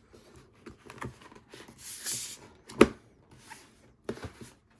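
Handling of a boxed K-pop album and its contents: scattered rustling, with a brief hissy rustle about two seconds in, a sharp knock a little under three seconds in, and a few soft thumps near the end.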